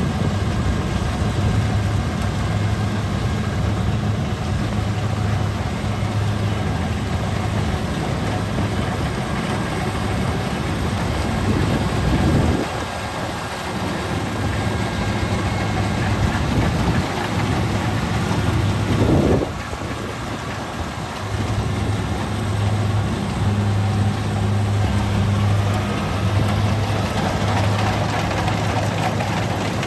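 Kubota DC-70G combine harvester's diesel engine running steadily under load, with short surges near the middle and about two-thirds of the way in, each followed by a brief dip.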